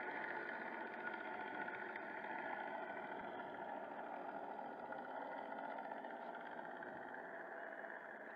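Simulated piston-engine sound from the ESS engine-sound speaker on an electric Carbon Z T-28 RC model plane, running steadily as the plane taxis and getting fainter near the end as it moves away.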